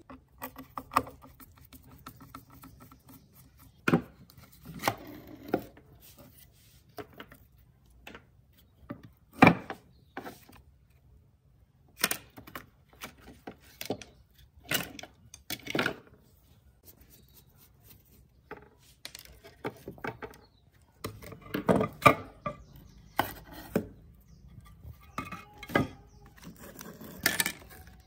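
Irregular knocks, clicks and scrapes of a screwdriver and hands working on the plastic shell and metal base of a rusty hoverboard during disassembly, with the rubber foot pad being pried off.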